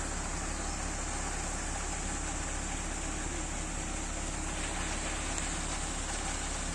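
Concrete mixer truck running steadily during a pour: engine and turning drum as a constant mechanical drone with a hiss over it.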